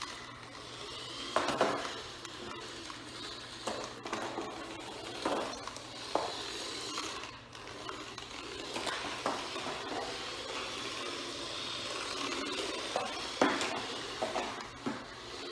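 Small electric motor of an RC toy car whining, its pitch rising and falling as it speeds up and slows, with a scattering of knocks and clatters as the car bumps about. The loudest knocks come about a second and a half in and near the end.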